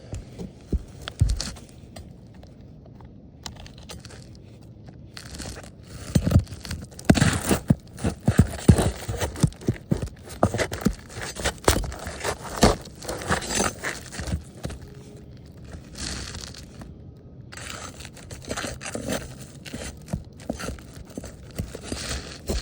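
Scraping, crackling and sharp clicks as a brittle roof shingle is pried at and its nails are worked loose. The sounds come in uneven clusters: a few clicks at first, busy work through the middle, a short lull, then more toward the end.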